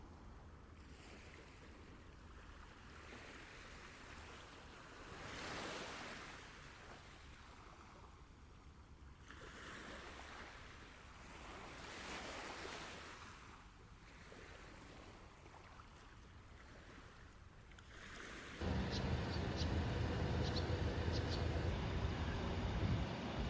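Gentle sea waves washing onto a beach, a soft rush that rises and falls several times. Near the end, a louder low rumble comes in suddenly.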